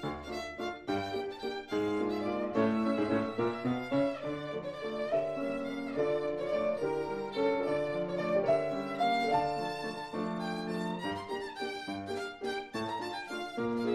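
Instrumental music, a violin carrying the tune: short quick notes at first, then longer held notes over a fuller accompaniment.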